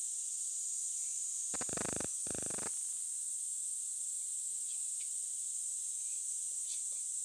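Steady high-pitched insect chirring outdoors, from crickets or cicadas. About two seconds in, two short rasping bursts, one right after the other, cut across it.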